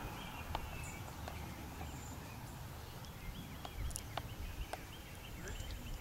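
Quiet outdoor ambience: a low rumble with a faint series of short high chirps through the middle seconds and a few scattered light clicks.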